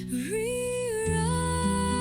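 Background music: a smooth lead melody that glides up and slides between notes over sustained bass notes.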